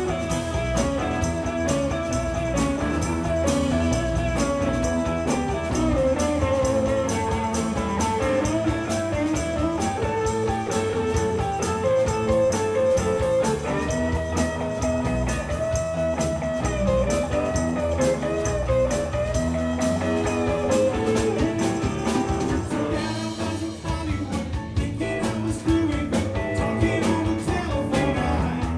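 Live blues-rock band playing a mostly instrumental stretch: electric guitars with bending lead lines over bass guitar and a drum kit, with a tambourine shaken along to the beat.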